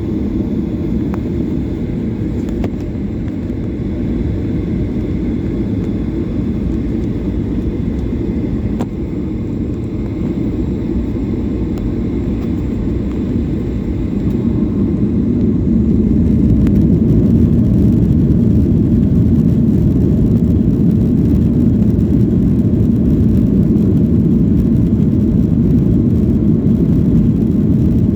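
Airliner cabin noise during take-off: a steady low rumble of jet engines and airflow that grows louder about fifteen seconds in, then holds.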